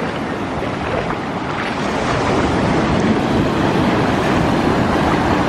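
Ocean surf washing in on the beach, with wind buffeting the microphone.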